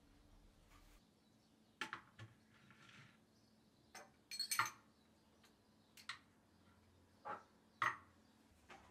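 Small glass spice jars being set down and handled against a wooden spice rack: a scatter of short clinks and taps at irregular intervals. The loudest is a bright clink about four and a half seconds in.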